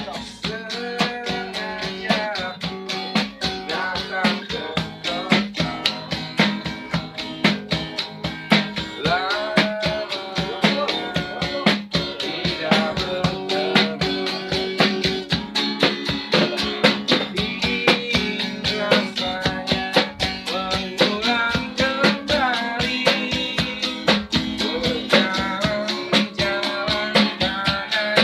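Acoustic guitar strummed in a steady rhythm, with a man singing over it and a small hand drum beating along.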